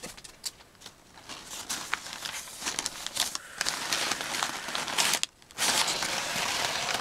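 Brown packing paper crinkling and rustling as hands dig through it in a cardboard box, with many small crackles. It stops briefly about five seconds in, then comes back denser.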